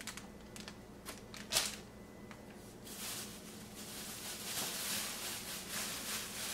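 Rummaging in a refrigerator: a few light clicks and knocks, then plastic bags of produce rustling from about three seconds in, over a faint steady hum.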